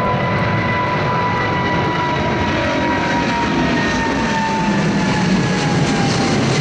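Twin jet engines of a Boeing 777 climbing out after takeoff: a loud, steady rush with a thin whine that slowly falls in pitch as the airliner moves away.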